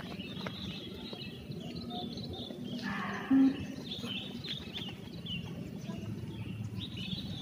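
Birds chirping in the background of an open-air training ground, with one short, loud, low beep a little over three seconds in, the kind of signal that paces the runners in a beep test.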